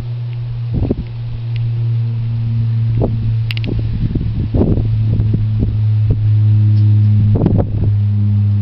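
Hundreds of bees buzzing as they work a tree's white blossoms: a loud, steady low hum, with a few dull thumps.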